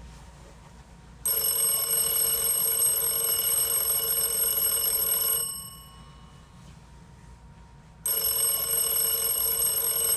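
An alarm clock's bell ringing in two long bursts of about four seconds each, with a pause of about two and a half seconds between.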